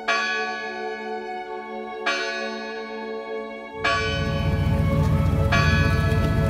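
Church bell tolling, struck about every two seconds, each stroke ringing on with a long humming tail. About four seconds in, a deep low rumble swells up beneath it while the strokes go on.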